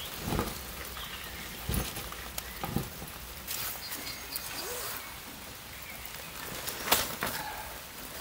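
Steady hiss of light rain, with occasional rustles and knocks from a soaked nylon pop-up tent being handled and dragged; the loudest of these comes near the end. A few faint bird chirps.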